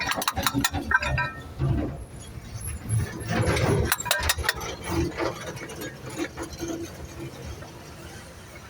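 Metal hand tools and engine parts clinking and clicking while an engine is worked on, with a run of sharp clinks in the first second and another cluster about halfway through.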